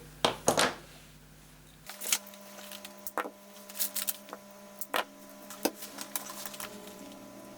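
Small sharp clicks and snips from cutting heat-shrink tubing and handling wires, scattered every second or so. From about two seconds in there is soft background music of held tones.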